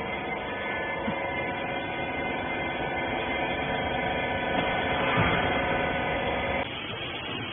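Machine motor running with a steady hum of several held tones, cutting off suddenly near the end.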